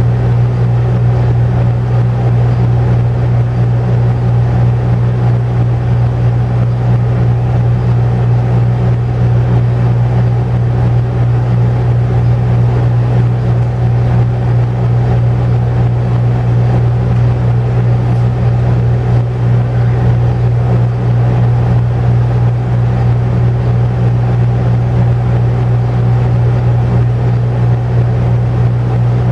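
Air conditioner running: a loud, steady low hum that never changes.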